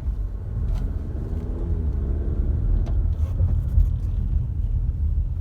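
Low, steady road and drivetrain rumble inside the cabin of a 2019 Toyota RAV4 Adventure as it slows down, with a faint wavering tone partway through and a couple of faint ticks.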